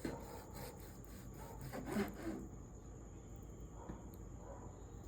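A knife sawing back and forth through a cooked steak, a run of short rubbing strokes that fade to lighter scraping about two and a half seconds in.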